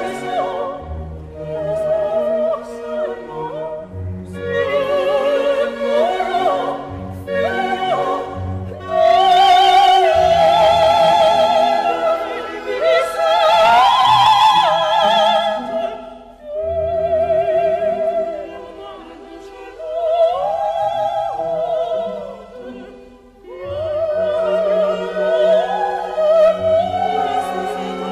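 Background music: an operatic voice singing with wide vibrato over orchestral accompaniment, in long phrases with short breaks between them.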